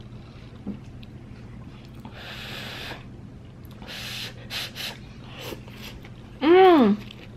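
Thin rice noodles being slurped up off chopsticks in two noisy pulls. Near the end comes a short, loud cry that rises and falls in pitch.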